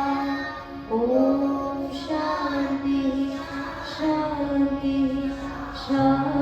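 Children singing a song with musical accompaniment, in long held notes.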